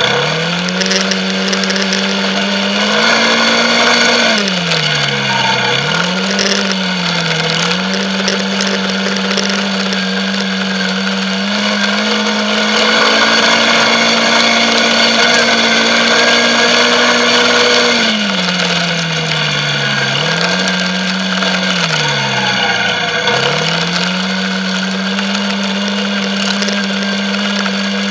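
Quad bike engine running at steady revs, the revs dropping and picking up again several times.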